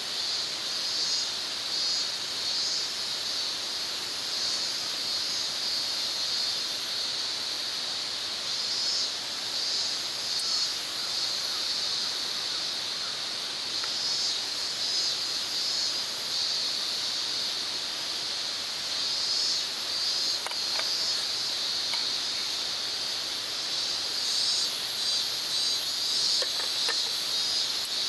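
Insects chirping in a steady, high-pitched chorus, pulsing slightly. A few faint clicks come through about twenty seconds in and again near the end.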